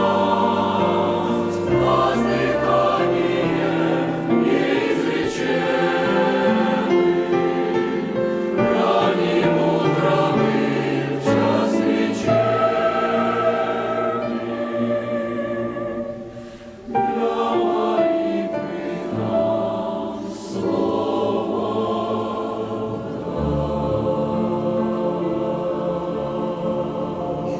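Church choir singing a Russian-language hymn in several voice parts, with a brief pause between phrases about halfway through.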